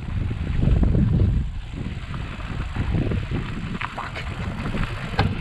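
Trek 1120 bicycle rolling over a gravel trail: low, uneven wind rumble on the camera microphone with tyre noise on the stones, and a few sharp clicks and rattles near the end.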